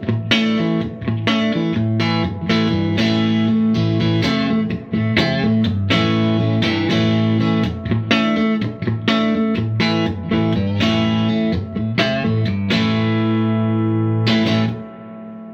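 Electric guitar played on the neck pickup through a Fender '64 Deluxe Reverb hand-wired tube amp, volume on 5 with a little reverb: a run of strummed chords, one to two strikes a second, with the amp just starting to break up. The playing stops about a second before the end.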